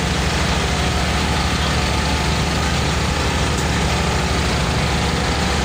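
Heavy engine idling steadily with a fast, even low pulse, most likely the passenger boat's engine running while it waits to depart.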